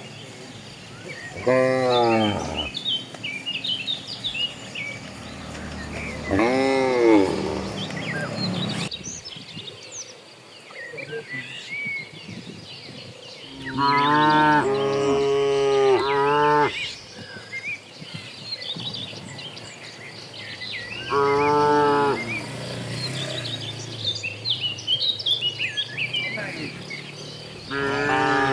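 Cattle mooing: five long calls spaced through, the middle one two cows lowing over each other, with small birds chirping in the background.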